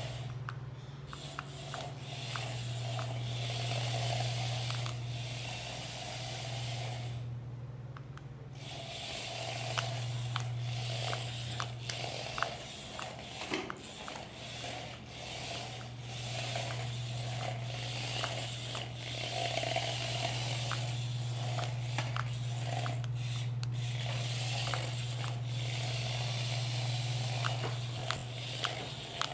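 Motor of a ride-on "pile driver" toy running with a steady low hum, cutting out twice for a second or two, with scattered clicks and rattles.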